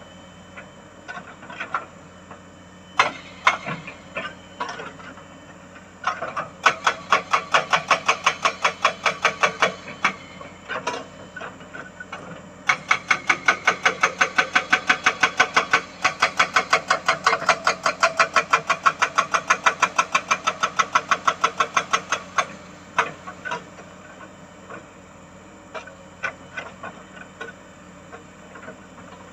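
Excavator-mounted hydraulic breaker hammering on rock, in fast runs of blows about six a second with short pauses and a few single strikes between, over the excavator's idling diesel engine. The longest run lasts about ten seconds, starting near the middle.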